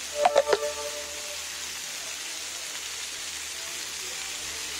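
Kefta patties and tomatoes sizzling on a hot flat-top griddle, a steady hiss. Three quick sharp knocks with a short ring sound just under half a second in.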